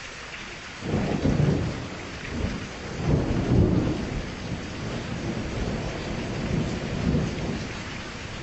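Steady rain with a roll of thunder: a deep rumble breaks in about a second in, swells again twice and eases off near the end.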